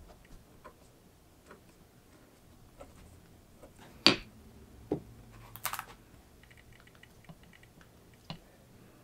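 Anvil-shaped stainless steel pattern weights being set down on a paper pattern over leather. There is a sharp knock about four seconds in and a softer one just under a second later, then a brief paper rustle, with light handling clicks and taps around them.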